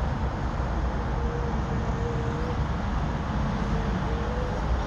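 Steady outdoor background noise: a continuous low rumble and hiss with a faint wavering hum.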